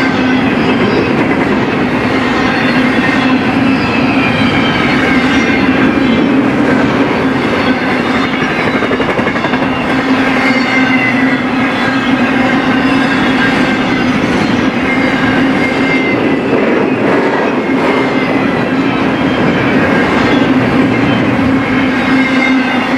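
BNSF freight train cars rolling past at a steady pace: a continuous low hum of rolling wheels with high, thin wheel-squeal tones that drift slowly downward.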